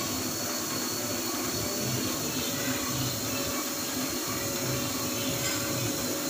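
Semi-automatic long cotton wick machine running, its electric motor giving a steady whirring hum.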